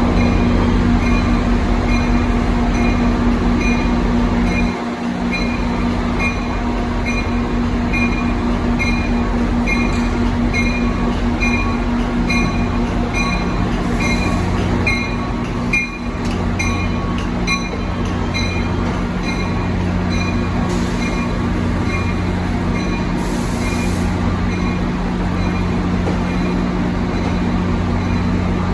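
NJ Transit Pascack Valley Line train arriving at a terminal: the locomotive runs with a steady low hum while its bell rings in an even rhythm, about once every two-thirds of a second, for most of the first seventeen seconds.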